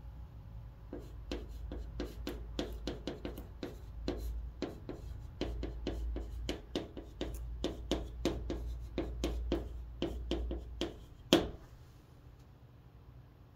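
Chalk writing on a chalkboard: a quick run of short taps and scratches as the strokes of Korean letters are written, ending about eleven seconds in with one sharper chalk knock, after which the writing stops.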